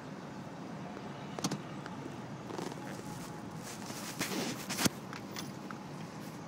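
Off-road vehicle driving slowly over a rough frozen trail, heard from inside the cab: a steady low engine and road rumble, with a sharp knock about a second and a half in and a louder burst of noise ending in a sharp knock just before five seconds.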